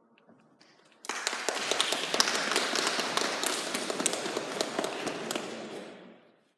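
Audience applauding: many hands clapping together, starting suddenly about a second in and dying away near the end.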